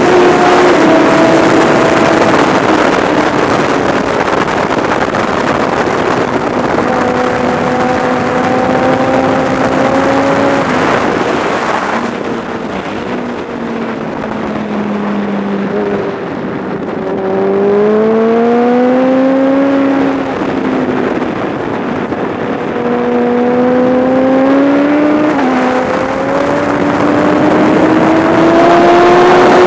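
Kawasaki ZX-10R's inline-four engine at track speed, heard under heavy wind rush on the onboard microphone. Its pitch climbs and drops again and again with throttle and gear changes; the wind eases and the engine falls in pitch and loudness through the middle, then both build again toward the end.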